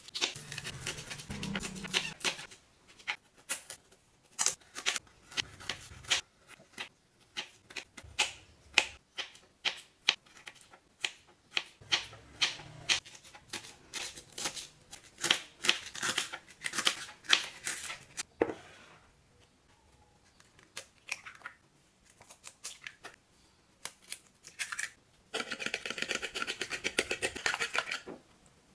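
Kitchen knife chopping vegetables on a wooden cutting board: quick runs of sharp knocks, thinning out after the middle. Near the end, a fork whisks eggs in a bowl with a fast, steady clatter.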